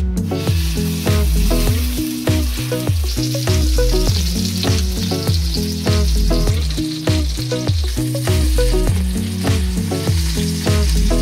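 Flat iron steak sizzling in a hot cast-iron skillet over charcoal, a steady hiss that grows stronger a few seconds in. Background music with a steady bass beat plays throughout.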